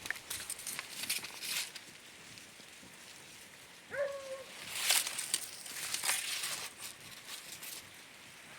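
Rustling and crackling in forest brush, with a herd of wild pigs grunting faintly in the distance. About four seconds in comes a single short whining call.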